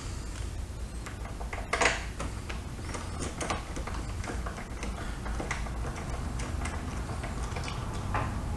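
Light, irregular clicks and ticks of a hand-held Allen-bit socket driver turning out the side-panel bolts of a motorcycle, with one louder knock about two seconds in.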